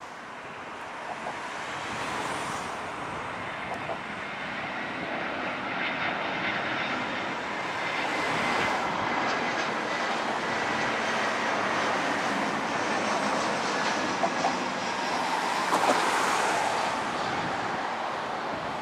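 Airbus A320 jet engines at approach power as the airliner descends on final approach, a steady rushing jet noise that grows louder over the first several seconds and then holds. A faint high whine runs through the middle.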